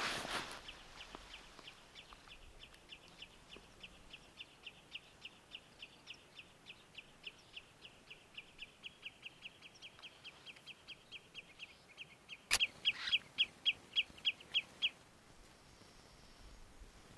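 A bird repeating one short high chirp over and over, about four times a second, then louder for a couple of seconds near the end. A single sharp click comes about twelve and a half seconds in.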